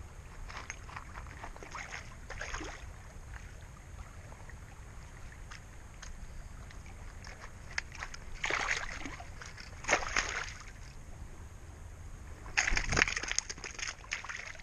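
Water splashing and sloshing in shallow water at the river's edge: three short bursts about eight and a half, ten and thirteen seconds in, the last the longest, over a low wind rumble on the microphone.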